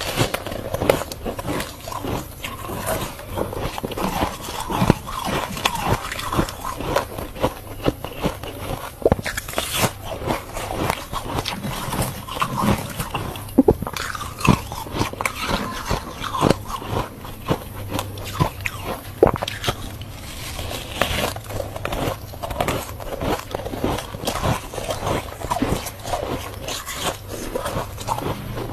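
Freezer frost being bitten and chewed close to the microphone: a dense, irregular run of crunches that goes on without a break.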